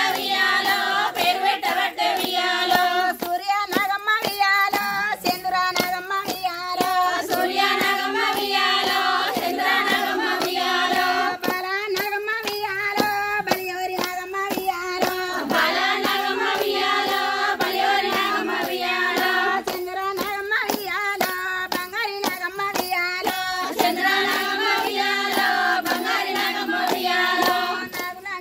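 A group of women singing a Bathukamma folk song together in unison, with steady rhythmic hand claps keeping time.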